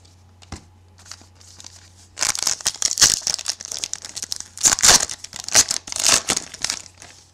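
A trading-card pack's foil wrapper being torn open and crinkled by hand: a run of tearing and crinkling rustles that starts about two seconds in and goes on until near the end.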